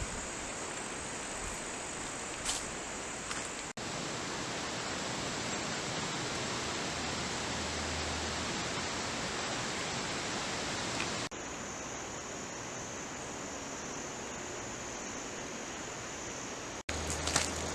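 Steady hiss of outdoor ambience with a continuous high-pitched insect drone, broken by three abrupt edit cuts that shift its level and pitch slightly. A few crackling snaps come near the end.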